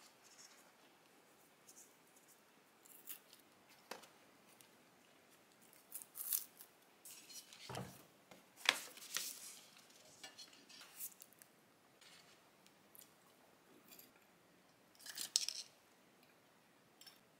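Scissors cutting fabric: a scattering of short, crisp snips and light rustles at irregular intervals, the loudest about halfway through.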